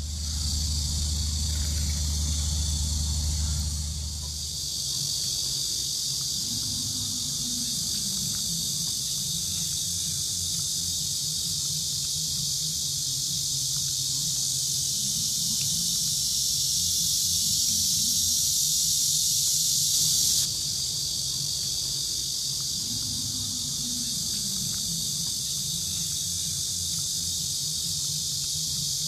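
Steady shrill insect chorus, a continuous high-pitched buzzing hiss, with a low hum for the first few seconds.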